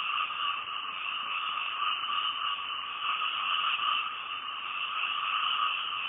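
Frogs calling at night in a dense, unbroken chorus, with no single call standing out.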